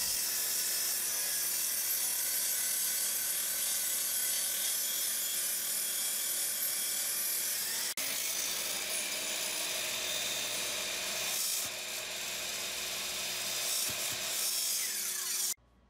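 Table saw running steadily and cutting through a stack of 3/4-inch Baltic birch plywood boards, a steady saw noise with no speech over it.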